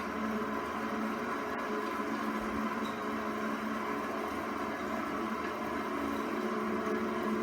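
ILGJet UA-205 18-inch industrial box fan running steadily on low speed, its ball-bearing motor humming with bearing noise from badly worn original ball bearings.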